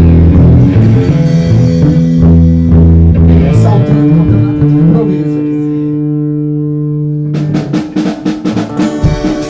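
Band playing live: bass and electric guitar notes under drums, then a guitar chord left ringing for a couple of seconds, followed near the end by a run of fast drum hits.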